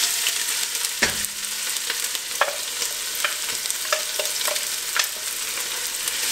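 Chopped onions sizzling in hot oil in a stainless steel pot, a steady loud hiss, while a wooden spoon stirs them and knocks against the pot and jug in short clicks, with one heavier knock about a second in.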